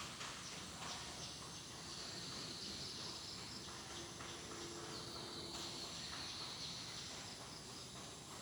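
Faint outdoor ambience with an insect trilling, a high steady buzz that comes in two stretches of a couple of seconds each.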